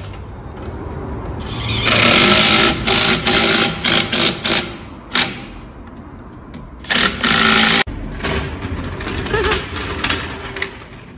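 Cordless impact wrench hammering on a wheel's lug nuts in a string of bursts, some about a second long and some short and quick, with quieter pauses between them. After about eight seconds the bursts stop and only softer, irregular clatter is left.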